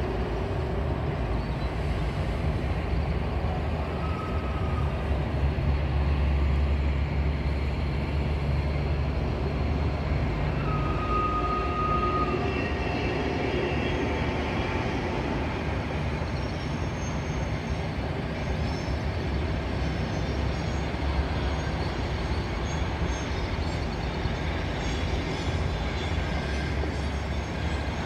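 Passenger train of double-deck coaches hauled by EP1P and EP20 electric locomotives rolling past at a distance: a steady low rumble of wheels on rails, with a short high tone about eleven seconds in.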